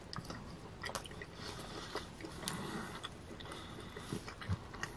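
A man chewing a mouthful of thin-crust pepperoni pizza with his mouth closed: faint mouth sounds with scattered small clicks.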